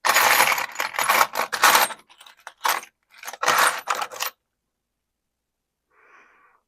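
Loose nuts, bolts and small metal hardware clattering and clinking as a parts bin is rummaged through: a dense bout of about two seconds, then a shorter one about three and a half seconds in, before it goes quiet.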